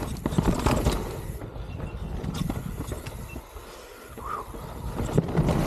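Mountain bike riding down a rough trail: tyres running over dirt and rock, with dense irregular rattling and clicking from the bike, easing briefly about three and a half seconds in.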